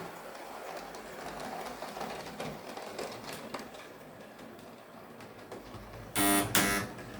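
Hornby OO gauge model steam locomotive running along the track: a steady whirr of its small motor and gears with light clicks from the rails. Near the end come two short, loud tooting notes.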